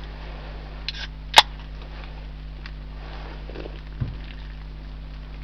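A drink can's pull tab snapped open: a short soft click, then a sharp crack about a second and a half in. A light knock follows a few seconds later.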